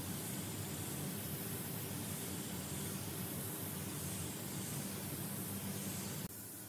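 Steady air hiss of a gravity-feed spray gun spraying paint onto a car roof, over a low steady hum. The sound drops abruptly near the end.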